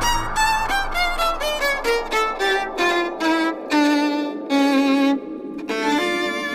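Background music: a melody of short notes stepping down in pitch, then a brief pause about five seconds in and a held note to finish.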